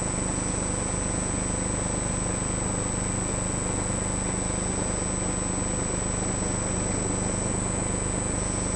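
Steady machine hum with a thin, constant high-pitched whine above it.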